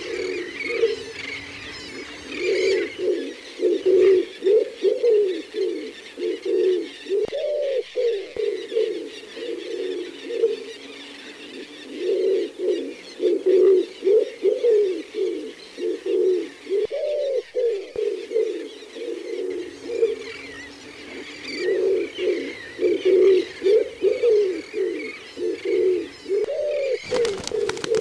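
Domestic pigeons cooing in bouts of rolling coos a few seconds long, with short pauses between, each bout ending on a longer rising-and-falling coo. Small birds chirp faintly in the background.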